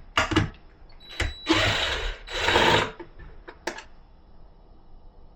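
A cordless drill/driver runs in two short bursts, a little under a second each, about a second and a half in, after a few clicks and knocks: backing the fasteners out to take the TV mount off the wall.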